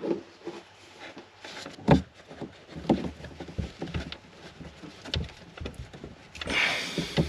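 Scattered clicks, knocks and rubbing of hands working the plastic push-fit connections to free a caravan water pressure regulator, with one sharper knock about two seconds in and a brief hiss near the end.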